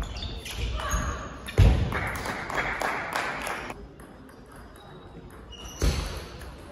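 Table tennis rally: the celluloid-plastic ball clicking off rubber-covered bats and bouncing on the table, echoing in a large hall, with a loud thud about a second and a half in and another near the end.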